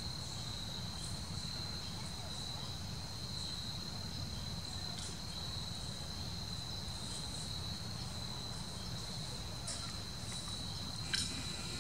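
Steady, high-pitched insect trill holding one pitch throughout, over a low steady rumble; a single sharp click near the end.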